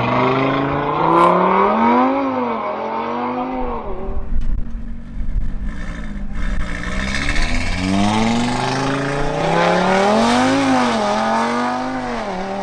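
Audi RS3's turbocharged five-cylinder engine accelerating hard down a drag strip, the pitch climbing and dropping back at each quick upshift. The run of shifts breaks off in a short lull about four seconds in, then starts again.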